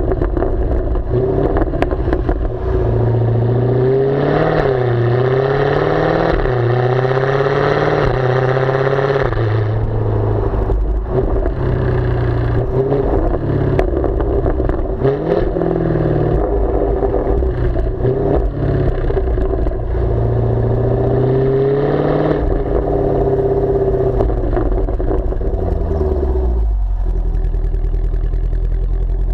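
Jaguar F-Type V8S's supercharged 5.0-litre V8 heard at the tailpipes with the active exhaust baffles open, its revs rising and falling repeatedly while driving. Near the end it drops to a low, steady idle as the car stops.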